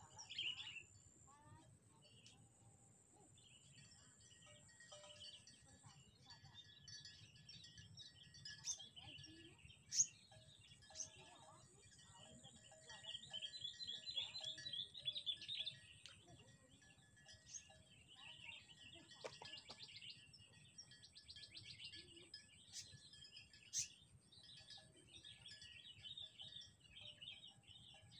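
Faint birds chirping and twittering, with a few sharp clicks, the loudest about ten seconds in.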